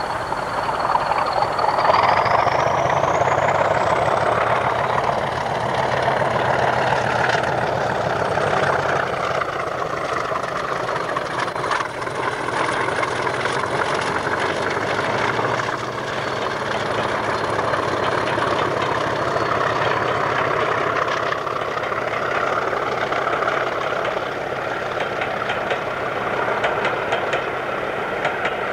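English Electric Class 40 diesel locomotive, with its 16-cylinder engine, working past while hauling a train of coaches, with a steady engine drone. A high turbocharger whistle rises in pitch about two seconds in and holds for a while before fading.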